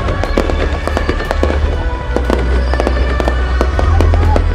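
Aerial fireworks shells bursting and crackling, many sharp bangs in quick succession, over loud music with a heavy bass.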